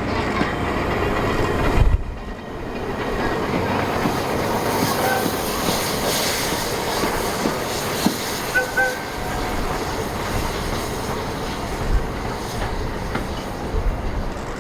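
A passing train with its wheels clattering over the rail joints, as a steady dense rumble and clatter.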